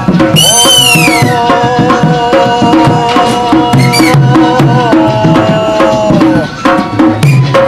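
Rajasthani puppet-show music: a hand drum beats a steady rhythm under held notes. A shrill, gliding squeak from the puppeteer's reed whistle falls in pitch about a second in and comes again briefly near four seconds.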